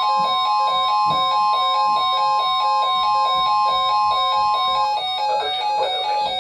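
NOAA Weather Radio warning alarm: a steady, loud single tone near 1 kHz announcing a severe thunderstorm warning, cutting off about five seconds in. A repeating pattern of short stepped beeps runs under it, like a receiver's alert chime, and keeps going after the tone stops.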